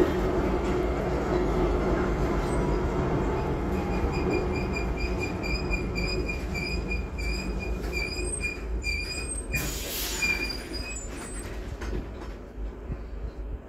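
Historic tram running on rails, its wheels squealing in a curve as a high, pulsing squeal from about four seconds in, with a short burst of noise near the end of the squeal. The running rumble fades away toward the end.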